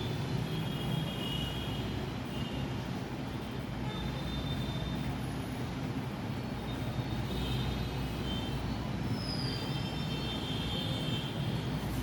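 Steady low background rumble, with short faint high-pitched chirps now and then.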